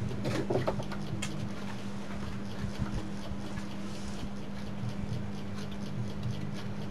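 Light clicks and taps of hands handling the wiring and a small loudspeaker at the back of an opened CRT television, most of them in the first second or so, over a steady low hum.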